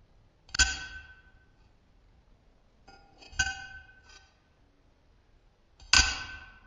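Hammer striking a steel chisel in slow, spaced blows, three in all, each a sharp metallic clink with a short ring. The middle blow comes with a couple of lighter taps.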